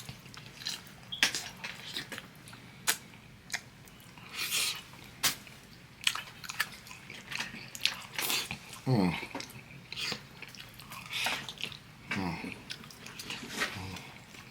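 Close-up chewing and mouth smacking while eating oxtails: irregular wet clicks and smacks, with a couple of short pitched mouth sounds about nine and twelve seconds in.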